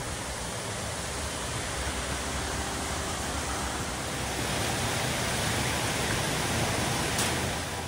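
Steady rush of a stream's water tumbling through a rocky gorge, a dense even noise that grows a little louder toward the end.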